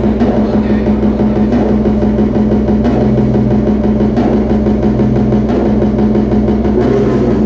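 Loud industrial electronic music from live synthesizers and effects: a steady low drone held on a few deep tones, with a dense, fast pulsing texture over it like a drum roll.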